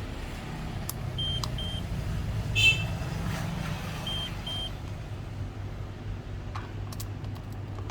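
Electronic beeper on a True Tone programmer sounding two quick double beeps, the pairs about three seconds apart, over a steady low hum. A short, louder chirp comes between the two pairs.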